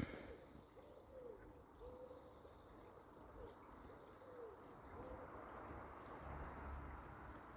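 A bird giving a faint series of short, low calls, each a brief note that rises and falls, about seven in all, stopping about five seconds in.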